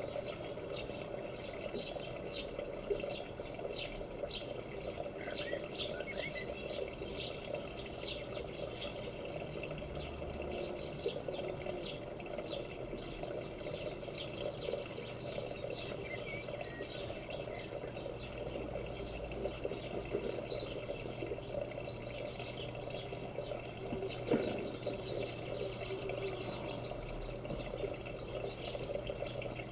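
Outdoor garden ambience: small birds chirping and twittering on and off throughout, over a steady low hum and hiss.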